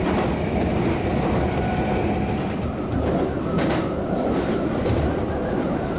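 Kintetsu electric train running at speed, heard from inside the car: a steady rumble of wheels on the rails, with clicks from rail joints and a faint steady hum.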